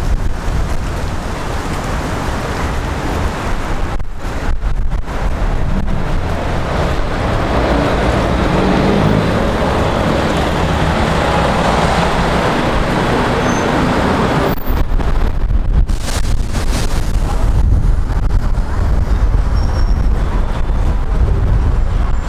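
City street traffic: cars running past in a continuous rumble, with one louder vehicle passing about a third of the way in.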